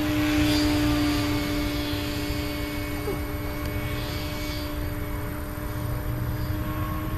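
Rigid-rotor model helicopter flying high overhead: a steady, even-pitched drone of engine and rotor that slowly fades as it moves away.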